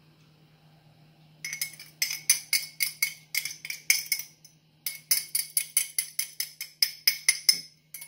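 A metal fork scraping and tapping against the inside of a glass measuring cup, knocking out the last of a beaten egg-and-milk mixture: rapid ringing clinks, about four a second, starting about a second and a half in, with a short pause around the middle.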